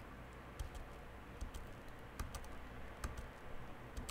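Faint, irregular tapping of computer keyboard keys, some taps coming in close pairs.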